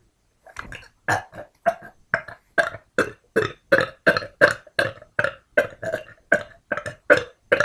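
A woman burping over and over in a rapid run of about twenty short burps, roughly three a second.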